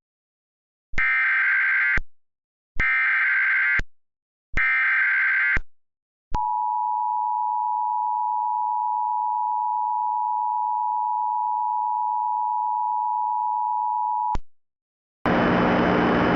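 Emergency Alert System tones: three one-second bursts of digital data tones (the SAME header), then the two-tone attention signal, a steady dual tone held for about eight seconds. These tones announce an emergency alert broadcast.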